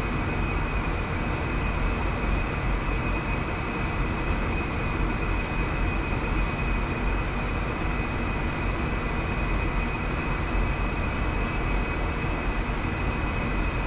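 Steady drone and hiss of commercial kitchen machinery, with a thin, steady high whine over it.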